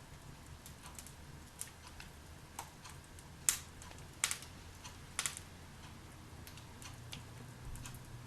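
Wood logs burning in a fireplace, crackling with irregular sharp pops, the loudest a few in the middle.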